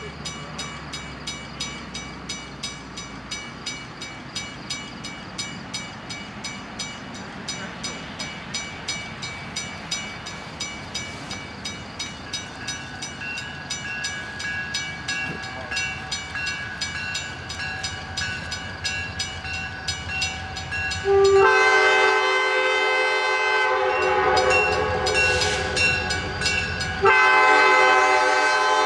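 Grade-crossing warning bell ringing at about three strokes a second while a train approaches, its rumble growing louder. Near the end the locomotive's multi-note air horn sounds two long blasts for the road crossing, the second running on.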